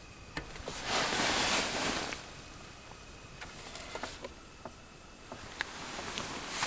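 A rush of rustling noise lasting about a second, starting about a second in, with scattered light clicks and knocks after it and a softer rustle near the end.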